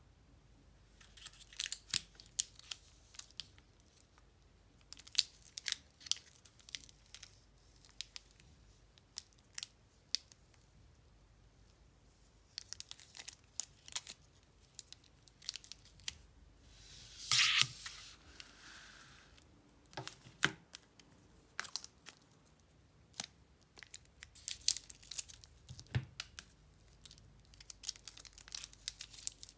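Crinkly plastic wrappers of Lindt Lindor chocolate bars being handled and opened, with scattered short crackles throughout. About halfway through comes one longer, louder rip or cut through the wrapper, and a soft knock near the end.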